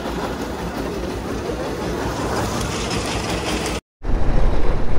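Steady mechanical running noise with a fluctuating rattle. A little before the end it cuts off abruptly, and after a moment of silence it gives way to wind buffeting the microphone over a low engine rumble.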